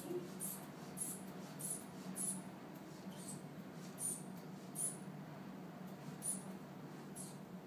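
Rubber inflation bulb of a manual blood pressure cuff being pumped, giving a short high-pitched squeak with each squeeze, irregularly about once a second, as the cuff is inflated while the radial pulse is felt.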